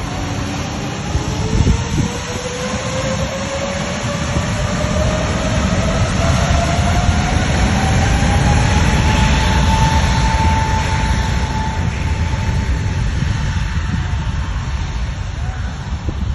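Twin jet engines of an Airbus A320-family airliner spooling up to takeoff thrust as it starts its takeoff roll: a whine that rises in pitch for about ten seconds and then levels off, over a heavy rumble that grows louder.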